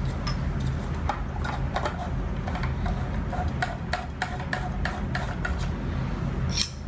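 Hard plastic fountain-kit fittings on a pond pump clicking and knocking as the riser tube and diverter are handled and pushed together, a quick string of sharp clicks over a steady low hum.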